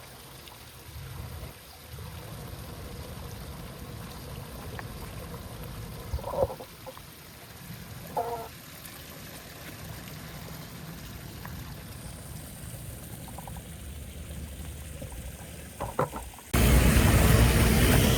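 Water trickling and pouring, with a few short knocks. Near the end a much louder, rushing noise cuts in suddenly.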